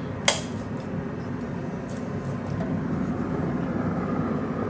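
A sharp click as the lid of a Traeger Ranger pellet grill is unlatched and opened, followed by a steady low hum.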